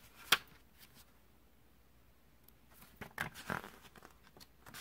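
Paper pages of an instruction booklet being turned by hand: one sharp rustle a moment in, a quiet stretch, then a run of soft crinkling and rustling from about three seconds in.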